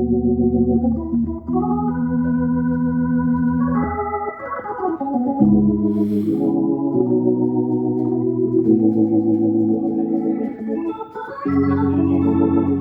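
Hammond-style organ playing sustained chords, changing chord every second or two, with a brief break near the middle.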